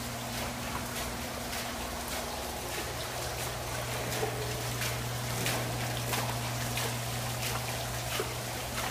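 Water trickling and splashing in a water-play exhibit of swivelling pans, a water wheel and tipping buckets, with irregular small splashes over a steady low hum.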